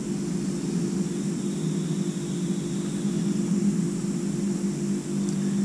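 A steady, unchanging mechanical drone with a low hum, like a running motor or fan.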